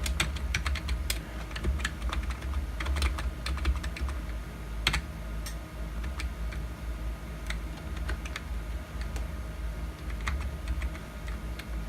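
Computer keyboard keys being pressed one at a time in irregular clicks, thicker in the first few seconds and sparser later, over a steady low hum.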